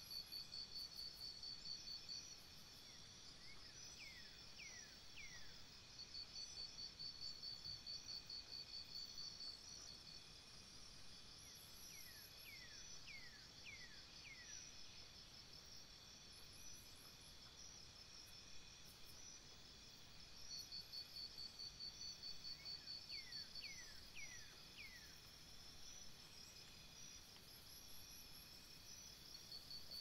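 Faint nature ambience: insects trilling in high, rapidly pulsing bouts, and three times a bird gives a short run of three or four falling whistles.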